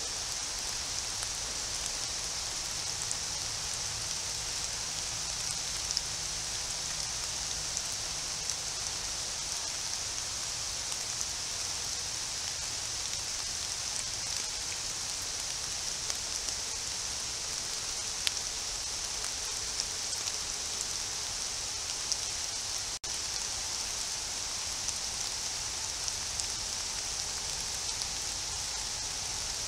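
Steady hiss of rain falling on the forest foliage, with scattered faint drip ticks. It cuts out for an instant about 23 seconds in, where two clips are joined.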